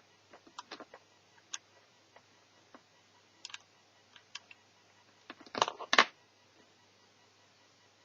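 Small sharp clicks and taps of netbook parts and tools being handled during disassembly, scattered and irregular, with a louder rattling clatter about five and a half to six seconds in.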